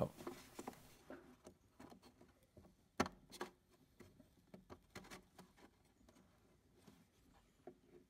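Faint scattered clicks and taps of hands handling a riding mower's plastic ignition switch and its wiring while pressing the switch's retaining tabs; the sharpest click comes about three seconds in.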